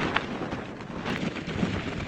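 Blizzard wind blowing in gusts and buffeting the microphone, with a couple of brief crackles.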